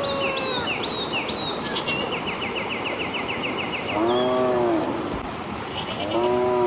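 Cattle mooing twice, short calls about four seconds in and again near the end, with small birds chirping and a rapid trill earlier on.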